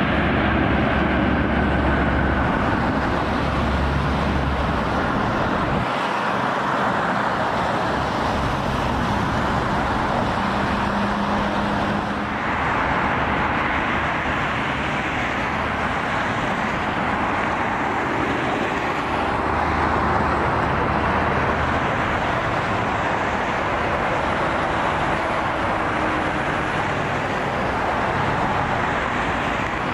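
Steady roar of Boeing 787 jet engines, first from a 787 on its takeoff roll, then from a 787 on final approach.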